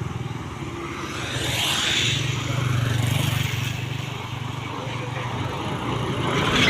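Old bus driving past downhill off the throttle: a low engine hum and road noise that swells and fades. Without throttle, its snoring (ngorok) exhaust note is not heard.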